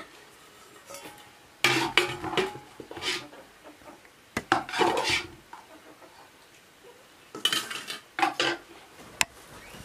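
Metal ladle scraping and clinking against a metal cooking pot and bowls as food is dished out, in three clattering bursts of about a second each, with a couple of single clinks near the end.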